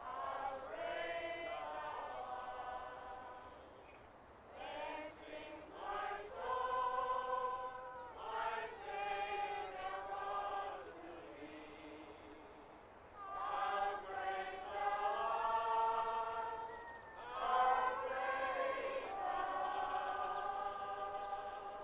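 Choir of mixed voices singing a slow hymn in long held phrases, with short breaks between phrases.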